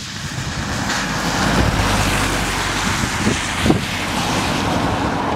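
A lorry driving past on a wet road: tyre hiss and engine noise swell about a second in and ease off near the end as it moves away, with some wind on the microphone.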